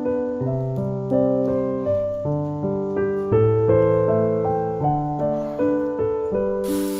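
Background piano music, a calm run of single sustained notes over low bass notes. A steady hiss comes in just before the end.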